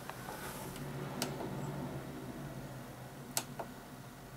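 A few faint, sharp clicks of a BenQ EL2870U monitor's control buttons being pressed to step through its input-select menu, over a low steady hum.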